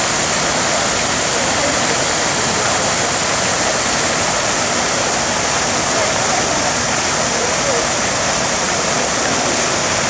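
Fountain jets splashing into a pool: a steady rushing hiss of falling water that cuts off suddenly at the very end.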